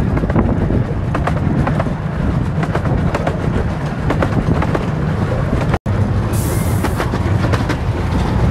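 Miniature steam railway train running, heard from an open passenger carriage: a steady low rumble with irregular clicks from the wheels on the rails. A short hiss comes about six seconds in.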